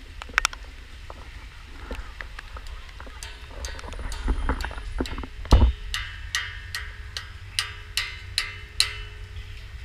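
A large old church bell struck over and over with a small hard object. From about three seconds in it gives a quick run of short clanks, about two to three a second, the loudest about halfway, over a faint steady ringing hum. The striker takes the sound for the sign of a cracked bell.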